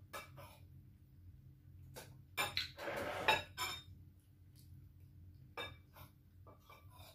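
A metal spoon clinking against a glass bowl of mung bean soup as it is scooped: scattered light clinks, with a louder cluster of clatter and scraping about two and a half to three and a half seconds in.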